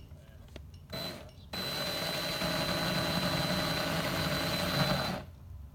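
Electric drill blipped once briefly, then run steadily for about four seconds with a high whine, turning the crankshaft of a LEGO chainsaw; it stops abruptly.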